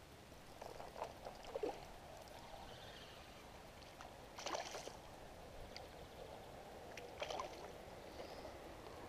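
Small hooked asp splashing at the surface of calm water while being played on a spinning rod: three bursts of splashing, about a second in, the loudest about halfway through, and another past the seven-second mark.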